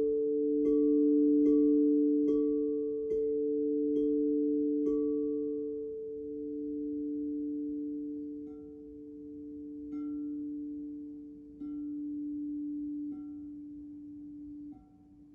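Crystal singing bowls ringing with two steady, overlapping tones. They are tapped softly about once a second at first and more slowly later, and the sound gradually fades.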